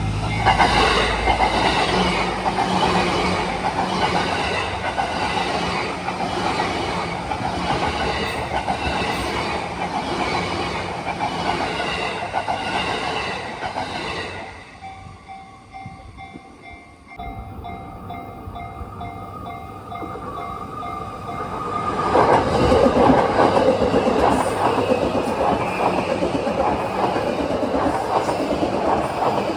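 A Yamanote Line E235-series electric train passes over a level crossing, its wheels clacking over the rail joints. In a lull about halfway through, the crossing's warning bell is heard ringing in quick repeated dings. Then another train comes through, loudest from about two-thirds of the way in.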